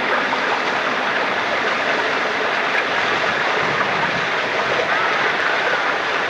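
Water from a holy well's spring flowing steadily, an even, unbroken rushing.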